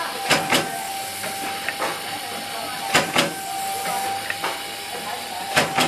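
Soap packaging and labelling machine running: a steady hiss and a constant whine, with a pair of sharp clacks repeating about every two and a half seconds as each packing cycle goes round.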